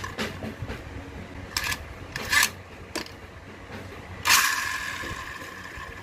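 Hard plastic clicks and knocks as a Beyblade X winder launcher and its cord are handled and fitted together. About four seconds in comes a louder, hissing hit with a ringing tone that fades over a second or so.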